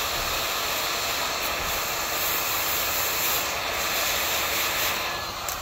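Handheld electric heat gun on its high hot setting blowing a steady rush of hot air. Just at the end it is switched off and its fan starts to wind down.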